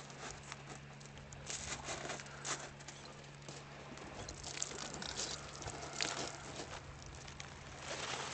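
Small pebbles on a shingle beach clicking and rattling in irregular, quick taps as they are moved, with a faint steady hum underneath.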